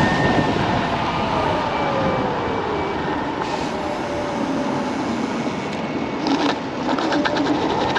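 Wind rushing over the microphone and road noise while riding a Kaabo Wolf King GT dual-motor electric scooter. A faint whine falls in pitch over the first few seconds, and a quick run of rattling clicks comes near the end.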